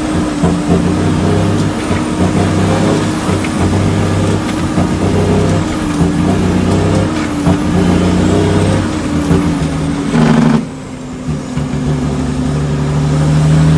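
International truck's diesel engine running under load, heard from inside the cab, its note stepping up and down as the driver shifts through the 18-speed manual gearbox. About ten and a half seconds in there is a short burst of hiss and the engine goes quieter for a moment before picking up again.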